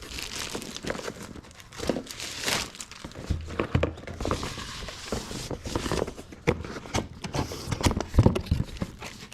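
Packaging being handled during an unboxing: irregular crinkling and rustling of wrapping, with scattered short knocks and taps as items are lifted out of the box.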